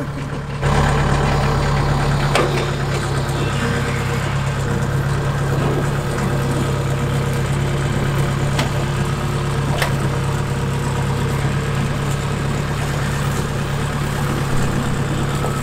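Farm machine engine, most likely a rice combine harvester's, running steadily with a constant low hum. It picks up about half a second in.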